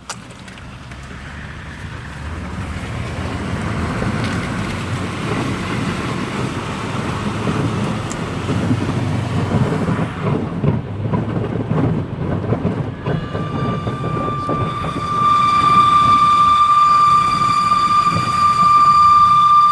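Car on the move, with road and running noise building as it picks up speed; about two-thirds of the way in a steady high whistle sets in and holds. The owner does not know its cause but rules out the steering rack.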